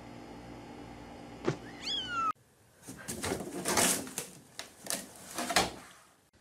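A cat gives one short meow that falls in pitch, about two seconds in. Then comes a cat scrabbling inside a lidded laundry hamper: a run of rustling and knocking, with a loud thump near the end as the lid drops shut.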